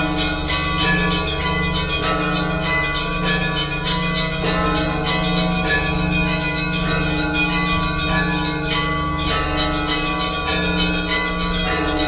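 Orthodox church bells rung together in the Russian zvon style: smaller bells struck in quick succession over the long, swelling hum of a larger, deeper bell.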